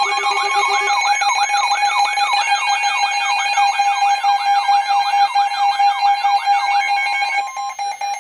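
Emergency Alert System two-tone attention signal, a steady harsh electronic tone, overlaid with a warbling alert tone that sweeps up and down about twice a second. The warble stops about seven seconds in while the steady tone continues, heralding the next weather warning.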